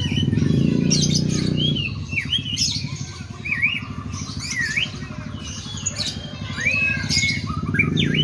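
White-rumped shama singing a string of short, clear whistled notes that swoop up and down, in a song imitating sooty-headed bulbul (kutilang) calls. A low buzzing drone sits under it in the first two seconds and comes back near the end.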